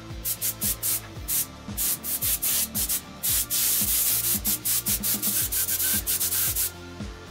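Compressed-air paint spray gun hissing as it sprays paint, in a series of short bursts and then longer passes, stopping shortly before the end. A steady beat of background music runs underneath.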